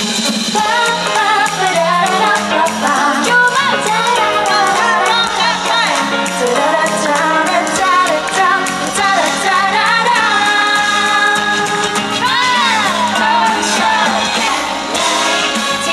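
Live Thai pop band performance: female vocalists singing over electric guitar, bass and drums.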